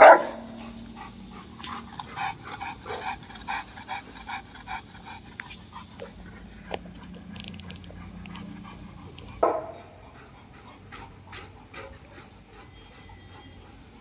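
Dogo Argentino dogs panting quickly, at about three to four breaths a second, in two runs. There are two short, louder sounds, one at the very start and one about nine and a half seconds in.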